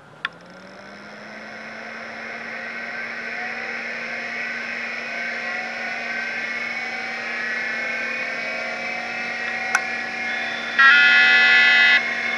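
A click, then a motor-like hum that rises in pitch over the first second and settles steady, with shifting higher whines over it. Another click comes near the end, followed by a loud steady electronic beep lasting about a second.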